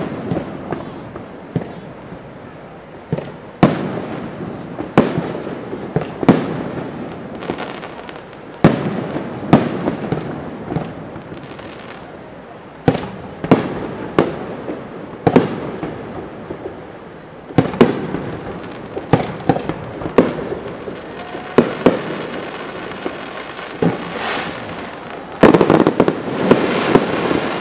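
Aerial firework shells bursting one after another in a display, each a sharp boom followed by a trailing echo, about one every second or two. Near the end a quick volley of several shells bursts almost at once.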